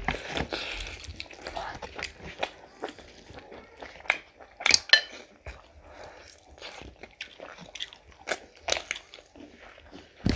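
Close-up eating sounds from people eating with their hands: repeated crunchy bites and chewing, with a run of louder crunches about halfway through.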